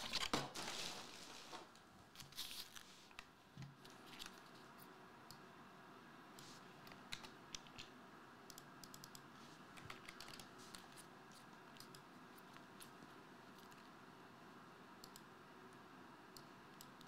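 Faint, scattered keystrokes on a computer keyboard. A few louder rustles of foil trading-card packs being handled come in the first few seconds.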